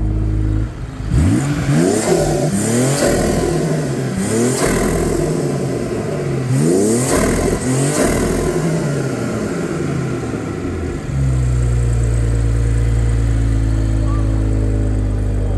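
Stage 3-tuned BMW engine with a performance exhaust, revved hard in a string of quick blips, each rising sharply in pitch and falling back, then settling back to a steady idle about eleven seconds in.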